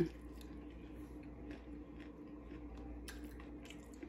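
Faint chewing with a few small mouth clicks, a person eating, over a steady low hum.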